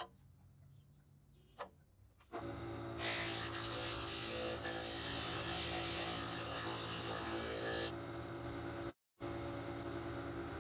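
Sanding drum on a spindle moulder starts about two seconds in and runs steadily with a motor hum. For about five seconds a wooden arch is pressed against the fine sandpaper, adding a rasping hiss as the glued joints are sanded flush. The sound cuts out for a moment near the end.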